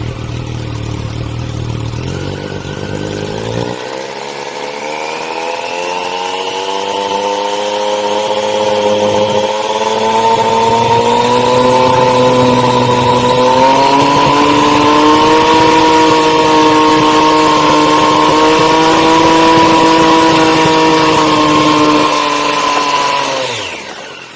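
Triumph Street Triple 765 R's three-cylinder engine through a Yoshimura Alpha-T slip-on silencer, revved up from idle over several seconds to about 6,500 rpm, held there steadily for about twelve seconds, then let drop back near the end. This is a static exhaust noise test, and the run measured 106.7 dB, over a 102 dB trackday limit.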